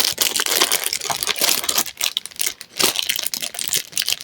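Packaging wrap crinkling and rustling as it is handled and pulled open, a dense run of irregular crackles.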